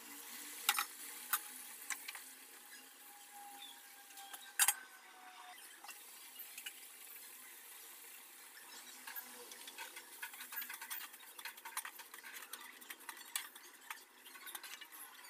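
Spatula stirring and scraping semolina and vegetables in a nonstick pan, a dense run of small scrapes and clicks in the second half. Earlier, a few sharp knocks of utensils against the pan.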